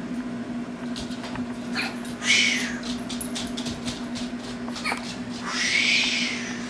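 Five-day-old newborn hiccupping: short sharp hiccups, with two longer breathy squeaks from the baby about two and five and a half seconds in. A steady low hum runs underneath.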